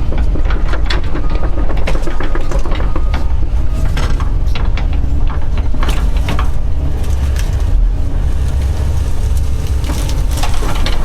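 Doosan DX140 excavator's diesel engine running steadily while the machine works an uprooted tree, with many irregular cracks, snaps and clanks over it.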